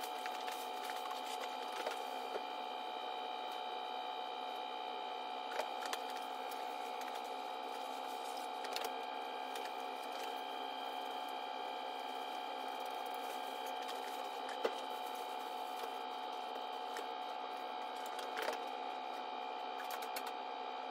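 A steady machine hum made of several fixed tones, with a few light clicks now and then.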